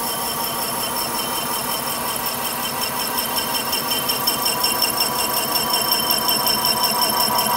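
JOYSUNG FDG4500 portable circular mill face-milling a large steel flange: a steady machine whine with a fast, even chatter from the face mill cutter that grows louder over the second half.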